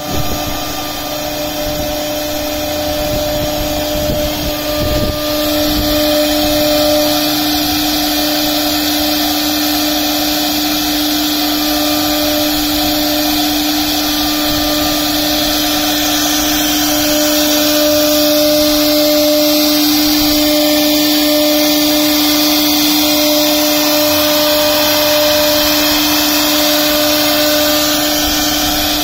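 Jai Modula heavy-duty CNC router's spindle running with a steady high whine while its bit carves a spiral twist into a wooden column turning on the rotary axis, with the hiss of wood being cut.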